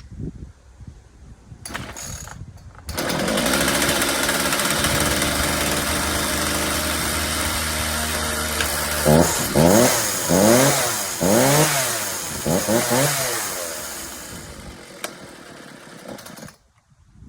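Ryobi RCS4246B 46cc two-stroke chainsaw starts about three seconds in and runs steadily, is revved up and down several times, then drops back and cuts out suddenly near the end: the idle is set a bit low.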